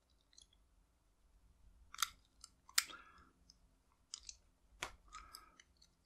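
Bent metal coat-hanger wire probing inside the keyway of a Slaymaker warded padlock, feeling for the spring: a few faint, scattered metallic clicks and short scrapes, the sharpest about two seconds and about three seconds in.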